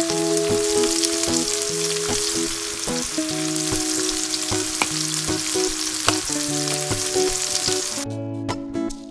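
Sliced bell pepper, carrot and onion sizzling in hot oil in a stainless steel pan, with plucked background music over it. The sizzle cuts off abruptly about eight seconds in, leaving only the music.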